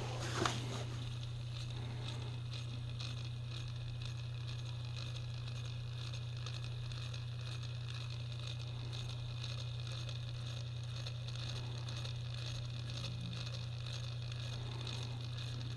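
Bathroom exhaust fan running: a steady low motor hum with an even rush of air, after a couple of clicks in the first second.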